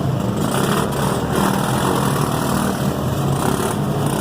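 Off-road vehicle engines running steadily at a mud-riding park, a low, even engine hum with no sudden event.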